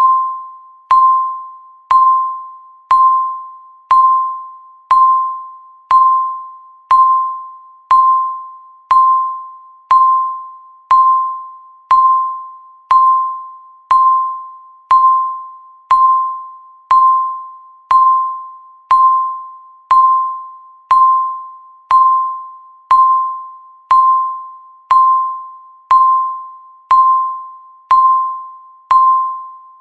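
Countdown timer beeping once a second, one beep for each second left. Each beep is a short single-pitched electronic tone that dies away quickly.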